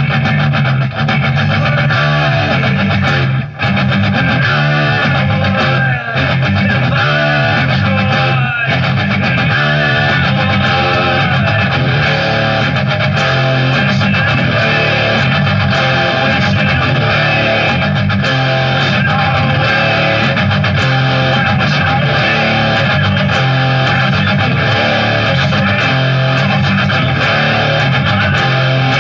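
Electric guitar with distortion, played along to a heavy rock band recording whose low, repeating bass line runs steadily underneath.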